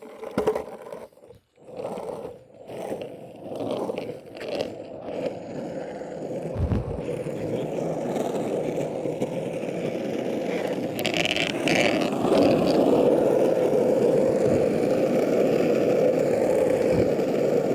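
Longboard wheels rolling on pavement: a few uneven pushes at first, then a steady rolling noise that grows louder as the board picks up speed, with wind on the microphone.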